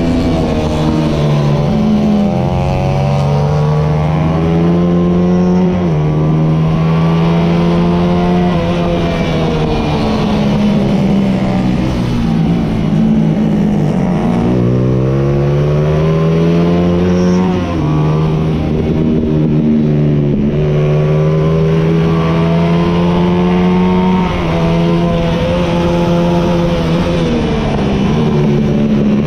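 Onboard sound of a 125cc production racing motorcycle's engine at racing speed, its note climbing under acceleration and dropping back with gear changes and braking for corners, with a sharp fall about halfway through before it climbs again.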